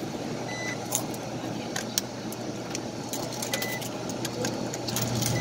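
Quarters dropped one at a time into a coin-operated laundromat dryer, each landing with a sharp click, and the dryer giving two short high beeps as it registers the coins and adds drying time. A steady low machine hum runs underneath.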